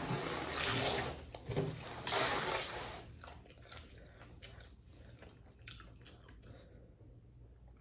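A paper towel rubbed across a tabletop in several strokes, then quieter sips through a drinking straw with a few faint clicks.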